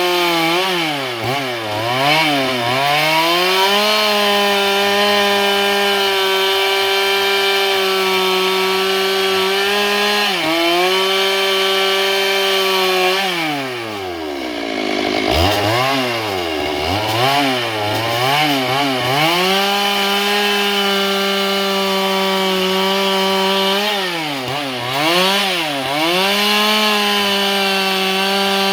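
Stihl MS 382 two-stroke chainsaw cutting dry eucalyptus at full throttle. The engine pitch drops again and again under load and climbs back up as the chain frees. About halfway through it bogs down deeply, nearly to a stall, before revving back up.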